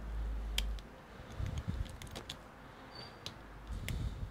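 Small sharp clicks and taps of a plastic tool and ribbon-cable connector on a laptop motherboard, with two spells of dull rubbing from gloved hands handling the board.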